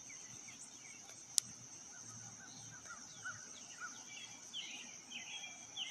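Faint outdoor ambience: birds chirping on and off, more busily in the second half, over a steady high insect buzz, with one sharp click about a second and a half in.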